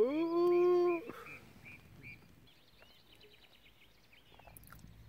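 A dog whining once for about a second, a steady-pitched begging whine for food held in front of it, followed by faint high bird chirps and twittering.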